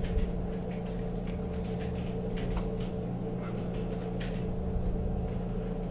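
Steady background hum with faint, scattered light clicks and scrapes of a Phillips screwdriver driving a small screw into a receipt printer's release-button mechanism.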